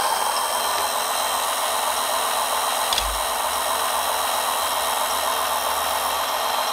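Electric hydraulic pump of an RC model truck running steadily with a whine while the hydraulic outrigger legs retract and fold in. There is one brief knock about three seconds in.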